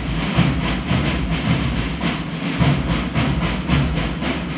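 Loud, fast, steady percussion beat, about four or five strokes a second, over a dense low rumble. It is typical of the street drumming that accompanies a dance of Catalan festival giants.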